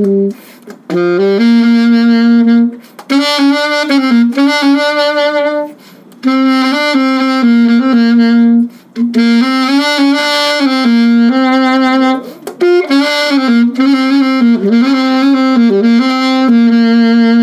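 Selmer Reference 54 alto saxophone with a Dukoff D6 mouthpiece playing a melodic line. Phrases of held notes and quick runs come in short bursts, with brief breath gaps between them.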